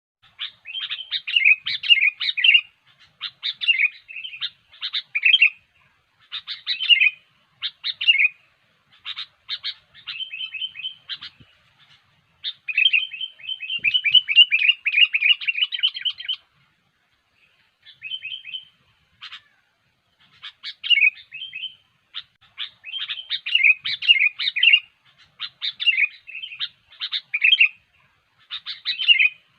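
Sooty-headed bulbul (kutilang) in full song: short, bubbly phrases of quick whistled notes repeated over and over, with a long run of fast chattering notes about halfway through.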